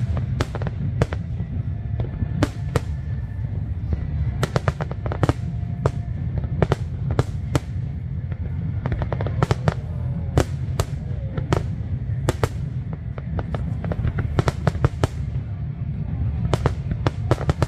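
Fireworks display: a continuous low rumble of aerial shell bursts, overlaid with many sharp crackling reports that come in quick clusters throughout.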